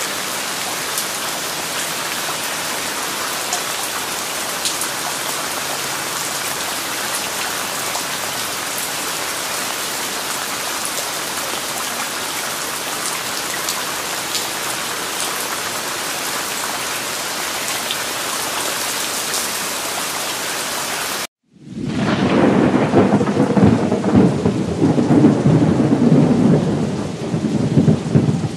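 Heavy rain falling: a steady, even hiss with scattered drop ticks. About three quarters of the way through it cuts out for a moment and is replaced by a louder, deeper rumbling that swells and ebbs.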